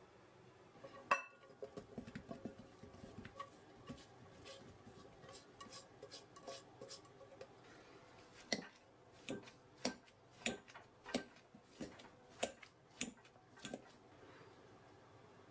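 Clinks of utensils and boiled potatoes against a glass mixing bowl: one sharp clink about a second in, then a run of small clinks. Over the second half, a metal potato masher knocks on the bottom of the glass bowl about ten times, a little slower than twice a second, as the potatoes are mashed.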